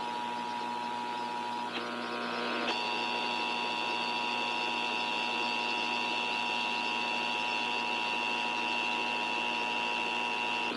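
Emergency Alert System attention signal: a steady electronic two-tone alert tone received over the radio, which shifts in character about two seconds in and runs until just before the spoken test message.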